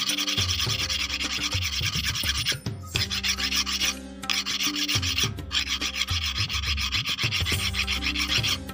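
A flat metal file rasping in quick back-and-forth strokes as a sewing machine's metal connecting link is rubbed along it, dressing the back side of the link so it fits without binding. The strokes stop briefly a little under three seconds in and dip again twice.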